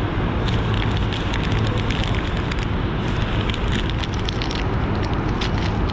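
Brown kraft-paper wrapper crinkling and rustling as hands unfold it, a dense run of small crackles that starts about half a second in. A steady low rumble runs underneath.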